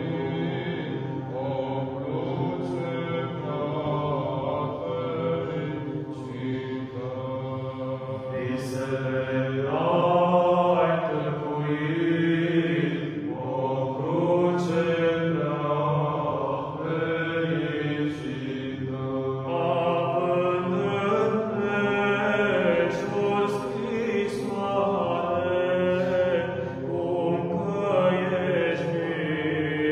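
A small all-male Orthodox chanters' choir of four voices singing Byzantine chant a cappella. The melody moves above a steady low held note.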